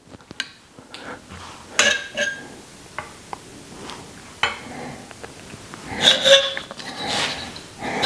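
Scattered metal clicks and clinks from a derailleur hanger alignment gauge being moved and set against a bicycle's rear wheel rim, with a louder run of ringing metal clatter about six seconds in.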